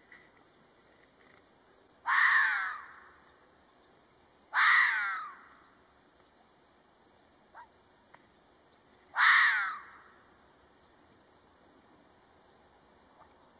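Red fox giving three harsh, screaming calls about a second long each, spaced a few seconds apart, the pitch falling through each call.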